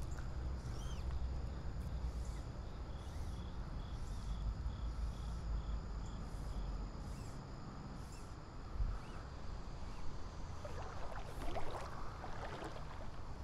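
River water sloshing and swishing around a wading angler, with a constant low rumble of current, and a louder burst of splashing about three-quarters of the way through. A short high chirp repeats about twice a second for a few seconds in the first half.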